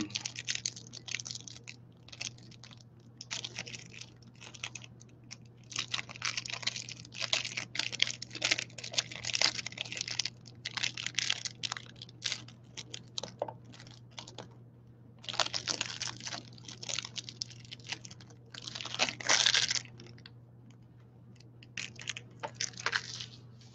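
Cellophane wrapping being torn and crinkled by hand, in irregular crackling bursts with short pauses between them.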